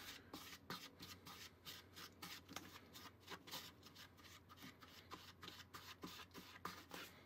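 Faint, irregular rubbing and soft tapping of cookie dough being pressed and mixed in a small bowl with a spongy spatula.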